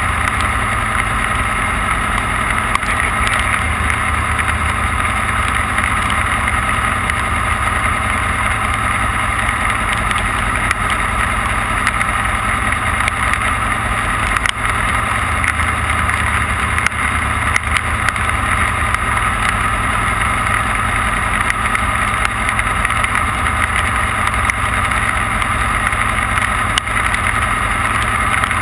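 Off-road race vehicle heard from on board at speed: a loud, steady drone of engine and running noise, with a few brief knocks.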